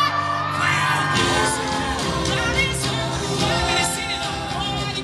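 Live pop band with a male singer through the hall's sound system: a held sung note, then the band comes in fuller with bass about a second in, under his singing.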